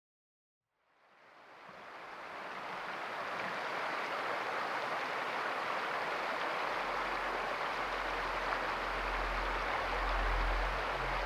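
A small mountain stream flowing: a steady rushing that fades in after about a second of silence, with a low rumble joining it from about six seconds in.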